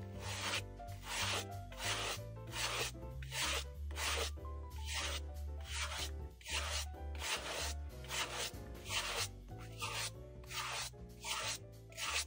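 A suede brush swept over the nap of a suede loafer in short one-way strokes, about two a second, each a dry brushing swish. Soft background music plays underneath.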